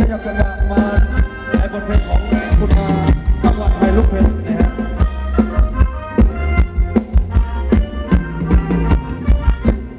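Live Thai ramwong dance-band music: a steady drum beat under a reedy, accordion-like melody.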